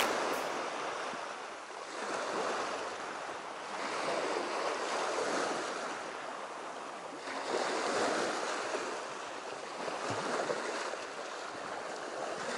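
Small waves washing up a grooved concrete slope and draining back, surging every two to three seconds, with some wind on the microphone.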